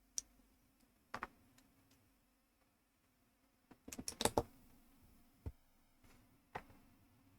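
Small plastic building-block pieces from a ZURU MAX set clicking as they are handled and pressed together. A few scattered clicks, with a quick run of louder clicks about four seconds in.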